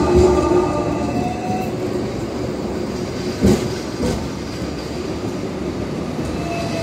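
Hong Kong double-decker tram running along its tracks, heard from aboard: a steady rumble of steel wheels on rail. A whine of several pitches fades out over the first second and a half and comes back, falling slightly, near the end. Two sharp knocks come about half a second apart, a little past the middle.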